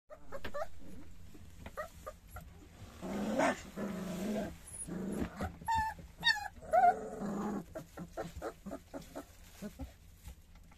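Three-week-old puppies whimpering, with short high wavering squeals about six to seven seconds in, and rougher, lower grumbling dog sounds a little before. Scuffing and rustling in straw bedding runs underneath as the dogs move about.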